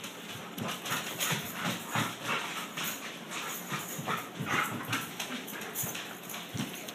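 Chocolate Labrador scampering on a hardwood floor: a quick, irregular patter of claws and paws.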